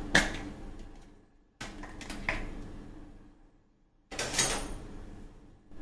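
Faint clinks and knocks of kitchen utensils being handled, in three short stretches that each cut off abruptly into dead silence.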